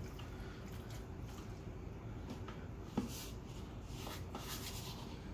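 Bare hands squishing and turning raw chicken pieces in a stainless steel mixing bowl: soft, faint wet squelches, with one sharp knock about three seconds in.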